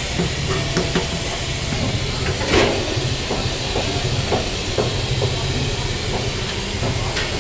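Busy eatery kitchen: a steady hissing rumble with scattered light clinks, and one louder clatter about two and a half seconds in.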